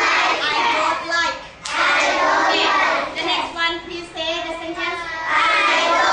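A class of young children singing together in unison.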